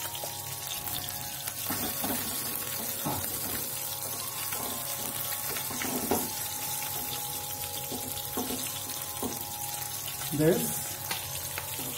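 Katla fish steaks frying in a little hot oil in a pan, a steady sizzle, with a few light knocks of a steel spoon against the pan as the lightly fried pieces are lifted out.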